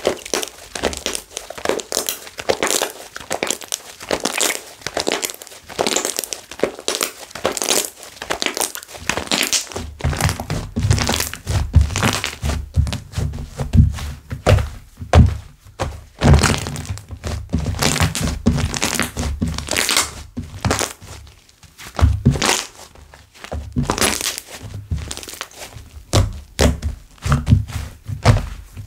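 Slime being squeezed, poked and folded by hand, with dense, irregular crackling pops of small air bubbles and soft thunks. From about ten seconds in, deeper thuds join the crackling.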